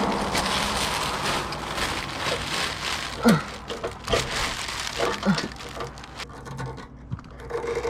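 Rubber exhaust hangers being worked off their metal hanger rods: scraping, crackling and knocking, with two short falling squeaks about three and five seconds in.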